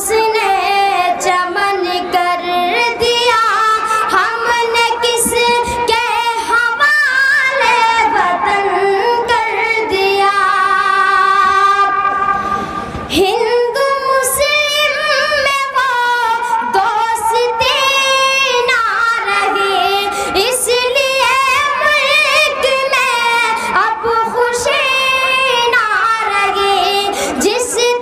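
A boy singing solo into a microphone: long held notes with a wavering pitch, with a short pause about halfway through.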